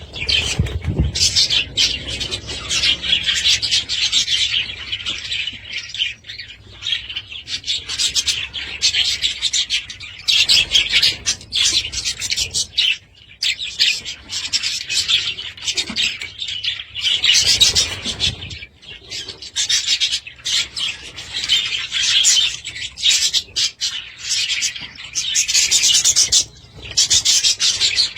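Budgerigars chattering and warbling: a dense, continuous stream of rapid high chirps and scratchy notes, with a few brief pauses.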